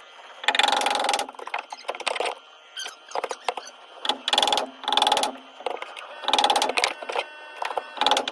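Hand tool working wood in repeated strokes, seven or eight bursts of about half a second each, spaced unevenly.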